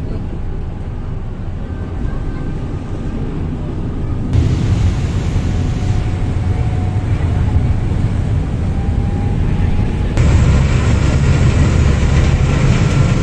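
Steady low rumble of a Thames Uber Boat underway, its engines running with water rushing in the wake. It gets louder in steps about four seconds in and again about ten seconds in, as the boat picks up speed.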